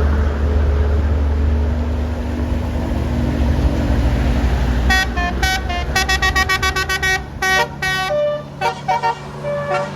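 A bus passing close, its engine and road noise loud. About five seconds in, a Basuri telolet horn plays a quick tune of short notes at changing pitches.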